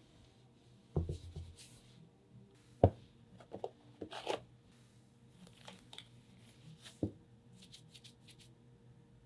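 A nitrile examination glove is pulled out of its cardboard box with a soft rustle and then stretched onto a hand, with a few sharp knocks on the wooden table, the loudest about three seconds in.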